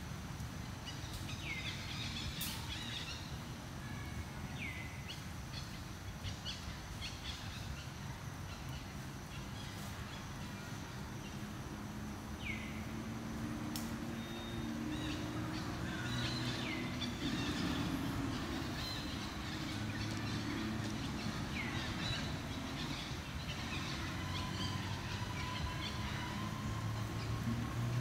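Outdoor ambience: scattered short bird chirps, several of them quick downward-swooping calls, over a steady low hum.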